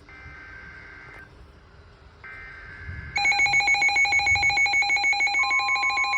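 Emergency Alert System tones: two faint one-second bursts of high, buzzy data tones, then about three seconds in a loud electronic alert that pulses rapidly, like a ringing telephone.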